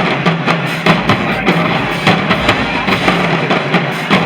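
High school marching band playing, with sustained low horn notes over a steady drum beat, heard from across the stadium.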